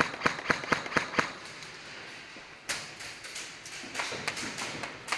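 Airsoft guns firing: a quick string of about seven sharp cracks in the first second or so, a louder crack near the middle, then scattered single shots and BB impacts.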